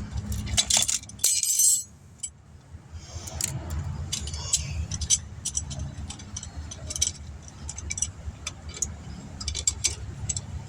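Light metallic jingling and scattered clinks, like keys or small metal parts being handled, with a louder rustling clatter about a second in, over a steady low hum.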